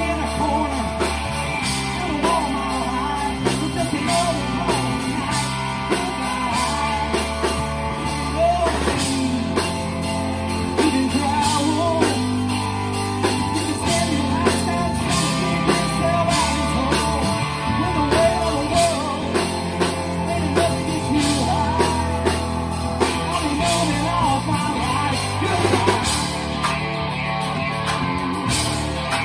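Live rock band playing a song: electric guitar, bass guitar, drum kit and keyboard, with a lead vocal singing over them.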